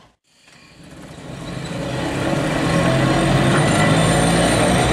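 Manx Electric Railway electric tram running, with a steady low hum. The sound fades up from silence over the first two seconds.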